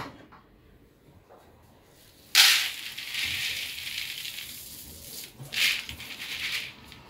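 Raw groundnuts poured from a fabric bag into a plastic colander: a sudden rattling rush of nuts about two and a half seconds in that slowly eases off, then a second shorter pour near the end.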